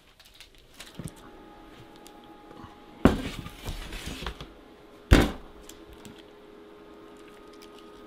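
Glass baking dish handled on a wooden cutting board: a knock about three seconds in, followed by about a second of scraping and rustling, then a louder single clunk about five seconds in as the upturned dish comes down on the board.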